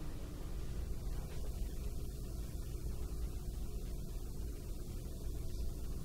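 Room tone: a steady low hum with faint hiss, no speech.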